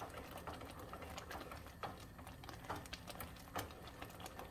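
Wooden spoon stirring a bubbling mixture of cornstarch and sugar syrup for Turkish delight in a pot, heard as faint, irregular small clicks and pops.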